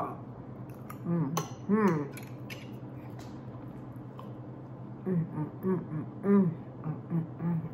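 A woman making short hummed "mm" sounds while eating, with a single click of a metal fork on a plate about a second and a half in.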